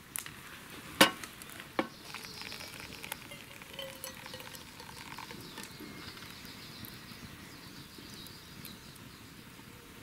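Hot water poured from an aluminium mess tin into a drip-bag coffee filter on a mug: a soft, steady trickle of water soaking the grounds. A sharp knock about a second in and a smaller one shortly after.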